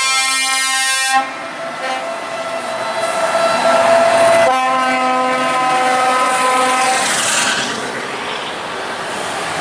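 Truck air horns sounding long multi-tone chords in succession. One chord cuts off about a second in, a second chord at a different pitch follows, then a third stops around seven seconds in. After that, heavy trucks' diesel engines rumble past.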